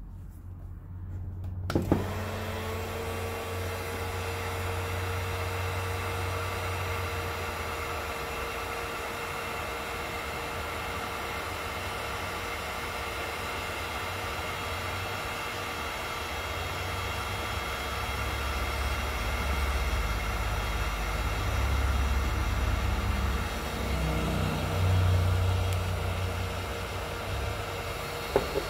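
Electric heat gun switched on with a click about two seconds in, then running steadily: a rush of blown air with a faint held whine from its fan motor, heating a spinnerbait for powder painting.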